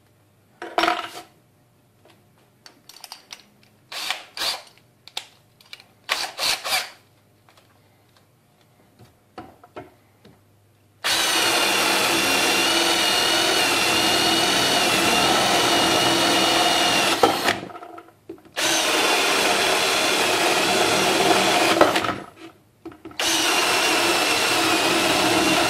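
Kimo 20V cordless drill boring a spade bit into a wooden board. Scattered handling clicks and knocks come first; about eleven seconds in, the drill runs with a steady whine for about six seconds, stops, then runs twice more for a few seconds each.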